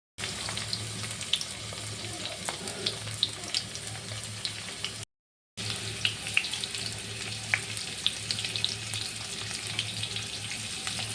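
Food frying in hot oil in a pan: a steady sizzle with frequent small crackles and pops, broken by a short dropout about halfway through.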